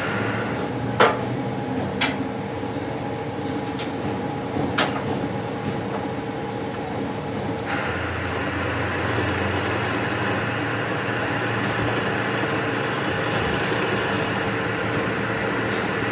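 A workshop machine running steadily, with a few sharp knocks in the first five seconds; about eight seconds in, a rougher rubbing, scraping noise joins it.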